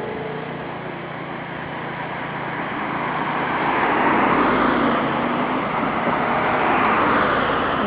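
Motor engine running steadily, its noise swelling louder from about three seconds in and easing slightly near the end.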